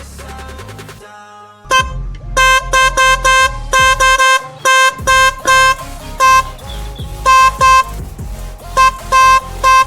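Motorcycle pressure horn sounding in a quick, uneven series of short, loud honks, each a single steady tone. It starts about two seconds in, over background music, which plays alone before that.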